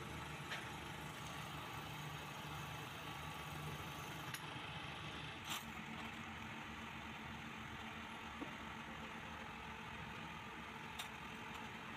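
A steady low engine-like hum runs throughout, with a few sharp clicks as metal engine parts are handled.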